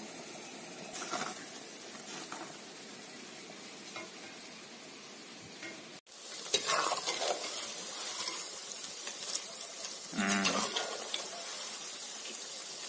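Banana stem pakoda pieces deep-frying in hot oil in an iron kadai, sizzling steadily while a perforated ladle stirs them, with light clinks of the ladle. The sizzle cuts off abruptly about six seconds in and comes back louder, and a brief low call sounds about ten seconds in.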